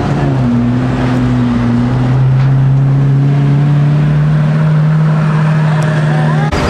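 Lamborghini Aventador's V12 engine pulling away at low speed, a steady deep drone that rises gently in pitch, cutting off abruptly near the end.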